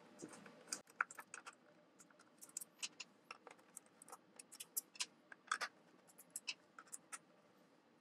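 Faint, irregular clicks and scratches of a Torx T10 screwdriver backing out the screws that hold a 21.5-inch iMac's power supply.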